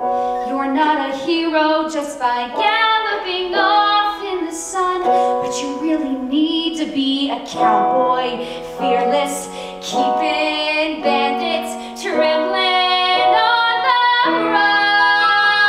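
A woman singing a show tune solo over instrumental accompaniment; near the end she holds one long note.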